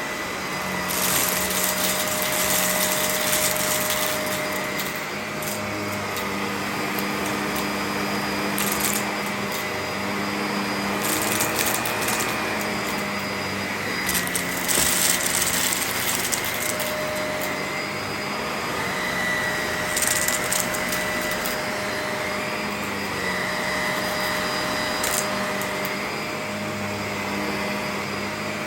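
Vacuum cleaner running steadily, its motor holding a constant hum and whine under a rushing hiss. Brief louder, higher hissing surges come every few seconds.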